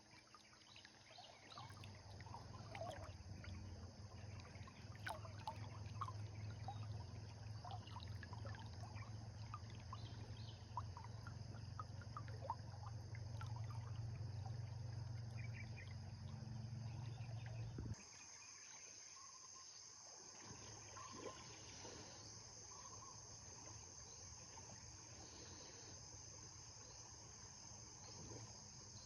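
River water running, with a steady high-pitched insect drone over it. A low rumble fills the first part and cuts off suddenly a little past halfway, leaving only the quieter water and insects.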